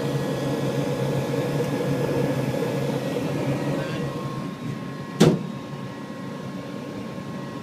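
Furnace running with a steady rushing hum, its burner lit and going after being knocked into starting. The hum gets quieter about four and a half seconds in, and a single sharp clack follows about a second later.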